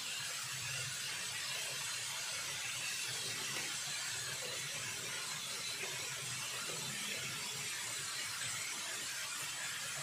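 Diced vegetables sizzling in oil in a frying pan: a steady hiss, with a low hum underneath.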